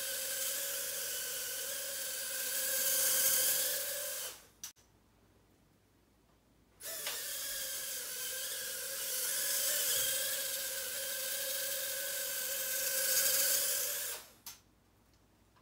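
Brushed micro quadcopter's tiny motors and propellers whining steadily in flight, the pitch wavering and the sound swelling as it moves. It cuts off suddenly about four seconds in with a single light tap, is quiet for about two seconds, then whines again until near the end, where it stops with another tap.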